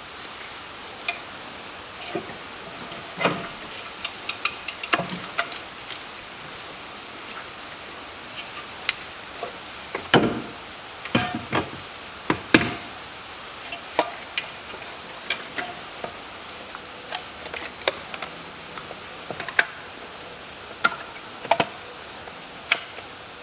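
Irregular clicks and knocks of hard plastic parts and wiring-harness connectors being handled and pushed into place in a car's engine bay, with a few louder knocks near the middle.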